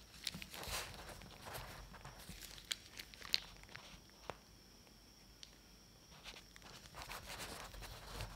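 Plastic piping bag crinkling and bread crust crackling softly as cream cheese filling is piped into the cuts of a round loaf and the wedges are pried apart. The crinkles come in two spells, with a quieter stretch in the middle broken by a single click.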